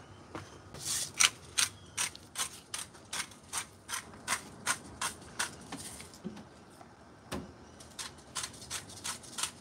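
Hand salt grinder being twisted, a gritty grating crunch with each turn, about two or three a second. It stops briefly about six seconds in, then starts again.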